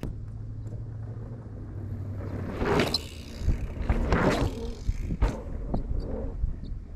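Mountain bikes rolling past on a dirt jump line: two rushing swells of tyres on dirt, about three and four seconds in, then a sharp knock a second later, over a low wind rumble on the microphone.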